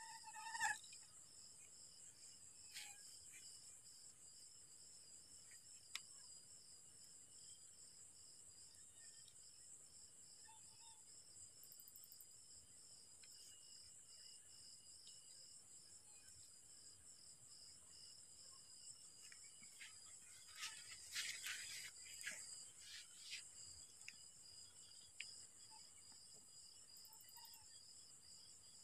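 Faint night chorus of crickets and other insects: a steady high trill with a pulsing, evenly repeating chirp. A few soft rustles and clicks come about two-thirds of the way through.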